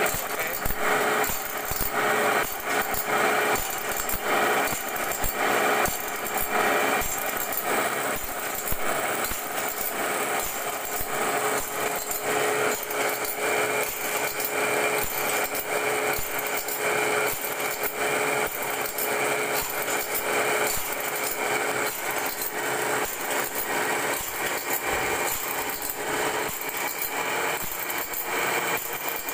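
Automatic band saw blade sharpening machine running: its motor hums steadily while the cam-driven feed and grinding wheel clatter in an even, repeating rhythm as the blade is ground tooth by tooth.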